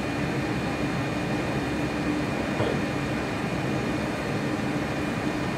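Steady hum and hiss of a ventilation fan running in the background, with one faint short sound about two and a half seconds in.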